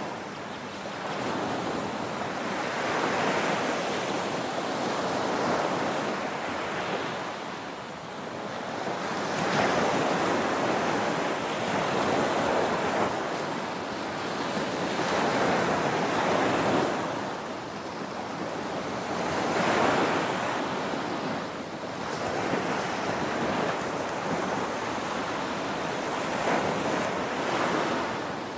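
Ocean surf: small waves breaking and washing up a sandy beach, swelling and fading every few seconds.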